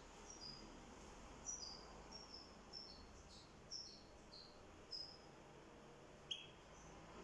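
Caged European goldfinch (chardonneret) giving faint, short high chirps, often two at a time, every half second or so. A single sharp click about six seconds in.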